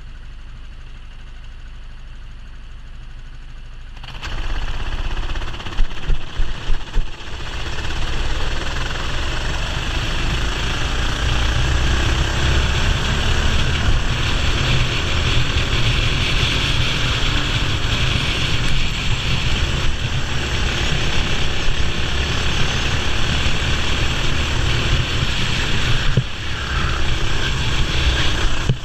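Racing kart engine, heard from onboard: running quietly for the first few seconds, then picking up sharply with a few quick surges about six seconds in, and after that running loud and steady at speed.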